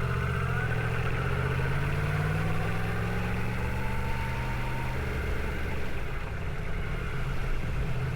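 Yamaha MT-10's crossplane inline-four engine running at low revs as the bike rolls slowly over loose gravel. Its pitch rises gently over the first couple of seconds, then holds steady.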